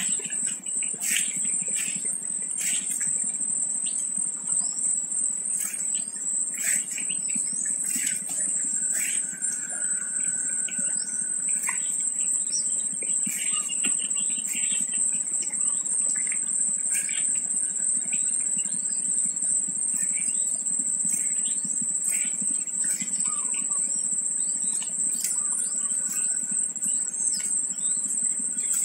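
Steady high-pitched insect drone, with scattered short bird chirps over it.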